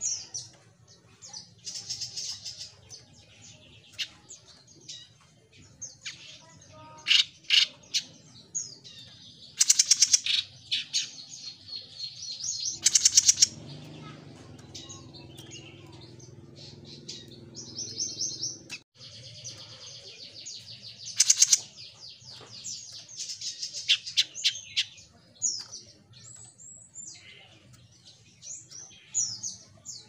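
Caged jenggot mini songbird singing: rapid high-pitched chirps and short trilled phrases in repeated bursts with brief pauses between them.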